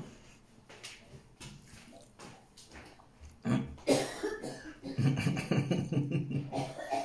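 Soft eating noises with faint clicks, then from about three and a half seconds in a man's short, repeated wordless vocal sounds, his reaction to the heat of very spicy food.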